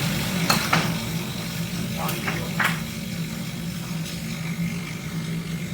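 A machine's steady low hum, with a few short, sharp clinks in the first three seconds.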